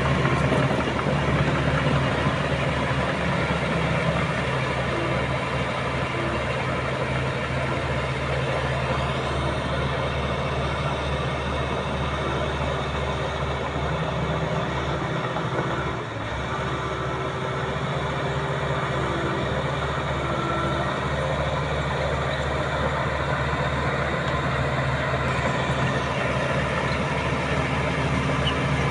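Diesel engine of a Komatsu D85SS crawler bulldozer running steadily under work, its pitch shifting slightly now and then, with a short dip in level about halfway through.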